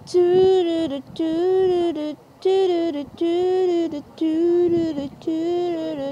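A voice singing a wordless refrain: about six held notes in a row, each close to a second long and nearly on one pitch, with short breaks between them.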